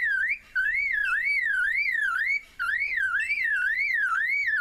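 Superb lyrebird mimicking a car alarm: a fast whistle swooping up and down about three times a second, in phrases with short breaks about half a second and two and a half seconds in.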